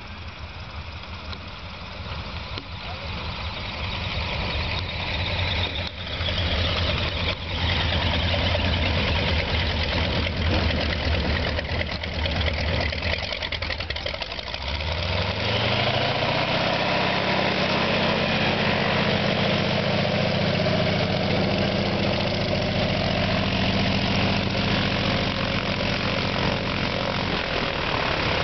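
Piston engine and propeller of a single-engine agricultural crop-duster, growing steadily louder as the plane closes in. About halfway through, with the plane right alongside, the engine note rises over a couple of seconds as it revs up, then holds a steady, higher drone until it changes again near the end.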